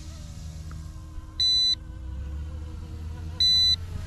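Short high electronic beeps, two of them about two seconds apart, repeating while the RC helicopter flies its return-to-home. Under them are a low wind rumble on the microphone and a faint, slightly wavering whine from the distant helicopter's motors and rotors.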